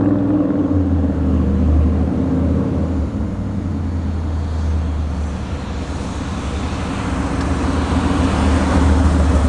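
Chevrolet C-10 pickup's chrome-dressed 502 big-block V8 running with a deep exhaust rumble as the truck drives. The rumble sags a little in the middle and grows louder again near the end as the truck comes back toward the camera.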